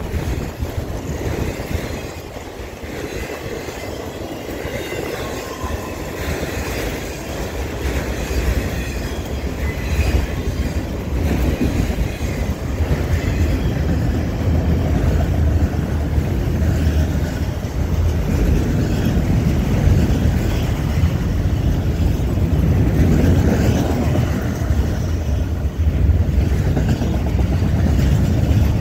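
Freight train cars, including autorack cars, rolling past close by: a continuous rumble and clatter of steel wheels on the rails, growing louder toward the end.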